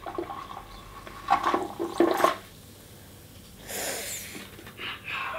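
Vinegar gurgling and sputtering as it is pushed from a syringe through tubing into a baking-soda toy volcano, with a short hiss about four seconds in.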